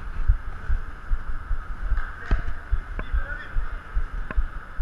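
Irregular low thuds of a body-worn camera being jolted as its wearer moves about a futsal pitch, with three sharp knocks of the ball being kicked and a brief faint distant call.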